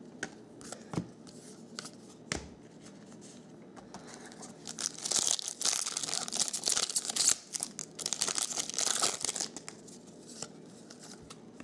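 A foil trading-card pack being torn open and its wrapper crinkled: a dense crackle lasting about five seconds, starting around four seconds in. Before it come a few light clicks of cards being handled.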